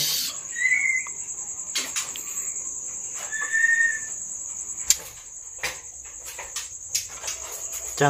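Small songbirds held in hands rustling and fluttering, with two short thin chirps, one about half a second in and one about three and a half seconds in. A steady high cricket trill runs underneath.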